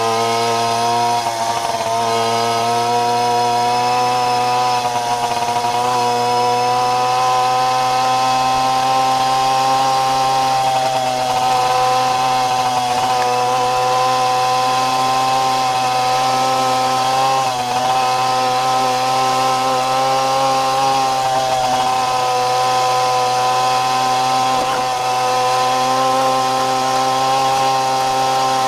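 Jawa Babetta moped's 50 cc single-cylinder two-stroke engine running hard at high revs. Its buzzing note holds fairly steady, with slight wavers and a few brief dips as the throttle eases.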